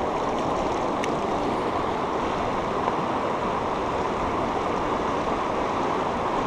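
Steady rush of a fast river running over rocks and riffles close to the bank.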